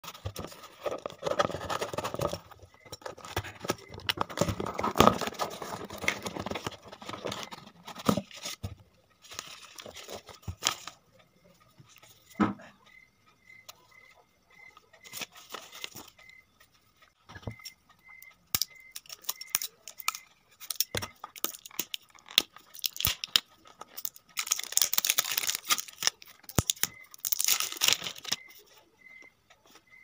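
Cardboard packaging being torn open and handled by hand: bursts of tearing and crinkling, with a few sharp knocks and clicks in between.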